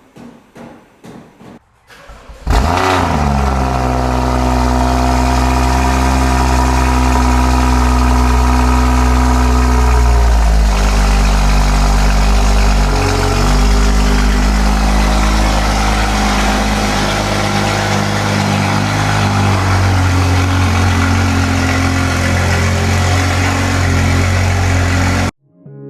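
Car engine starting: it catches about two and a half seconds in with a quick rise in revs, then settles into a steady idle whose pitch changes at about ten seconds in. It cuts off abruptly near the end.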